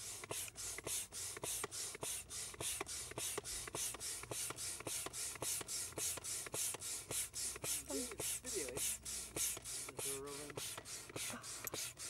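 Hand air pump inflating an Intex Challenger K2 inflatable kayak: a steady, rhythmic hiss of air at about three pump strokes a second.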